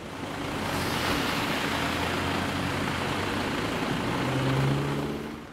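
A car engine running close by under a loud hiss that swells about half a second in. A low engine drone strengthens near the end, then the sound falls away quickly.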